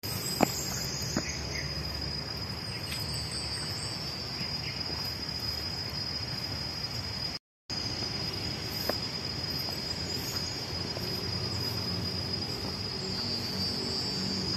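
Insects in the trees droning steadily at one high pitch, over a low outdoor background hum. The sound cuts out briefly about halfway through.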